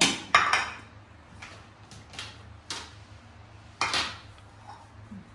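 Dishes and a plastic food cover knocking and clattering on a kitchen countertop: a handful of separate knocks, the loudest about a third of a second in and another strong one near four seconds.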